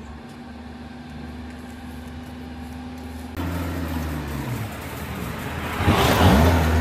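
A machine or engine running with a steady hum. The sound changes abruptly about halfway through, the pitch falls, and it grows louder and rougher near the end.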